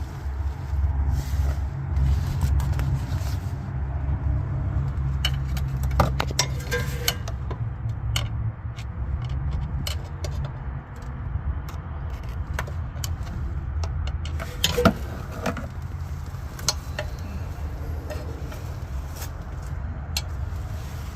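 A steady low mechanical hum with scattered sharp metallic clinks and taps.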